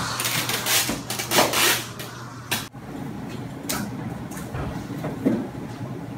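Hand truck loaded with cardboard boxes rolling across a hard floor, its wheels and load rattling with several knocks. After a sudden break, quieter handling of plastic trays and bins: light knocks and rustling, with one louder knock.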